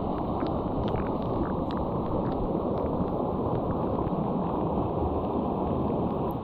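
Steady rushing of a small creek's flowing water, with faint short high ticks scattered through it.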